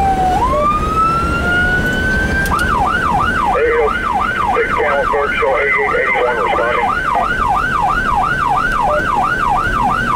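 Electronic siren of a responding fire and rescue vehicle: a slow wail that dips and climbs back over the first couple of seconds, then switches to a fast yelp at about three cycles a second. Engine and road rumble runs underneath.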